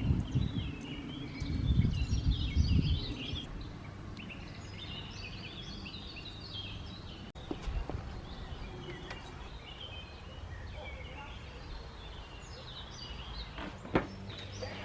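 Birds chirping and twittering steadily. Low wind rumble on the microphone for the first few seconds, a steady low hum after that, and a single knock near the end.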